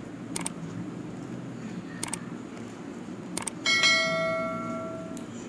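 Subscribe-button overlay sound effect: three short clicks, then a bright bell chime about four seconds in that rings and fades out over about a second and a half.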